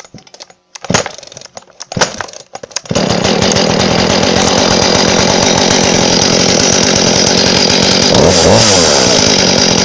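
Klever GS5200N two-stroke petrol chainsaw pull-started on its rebuilt recoil starter. Two short pulls come about a second apart, then the engine catches about three seconds in and runs steadily. Near the end its pitch briefly rises and falls.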